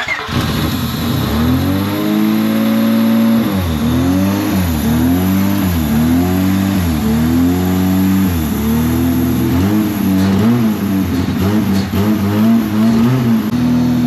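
A V6 car engine starts and runs on starter fluid sprayed into its intake, its speed swinging up and down over and over, about every second and a half, then steadier near the end. Running on starter fluid points to a fuel-delivery fault, which the mechanic takes for a failed fuel pump.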